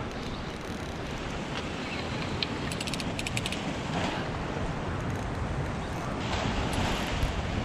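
Wind buffeting the microphone over steady surf wash, with a brief run of quick ticks about three seconds in.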